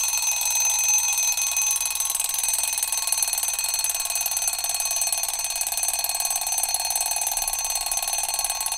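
Timer alarm going off as the countdown reaches zero: a loud, continuous, high-pitched alarm tone.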